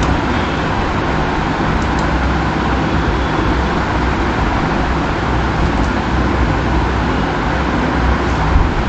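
Steady, loud rushing background noise with a low rumble and no speech, broken by a couple of faint clicks about two seconds in and near six seconds.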